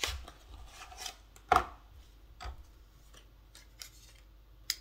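A box of question cards being handled: a few short, sharp taps and knocks of card and cardboard, the loudest about a second and a half in.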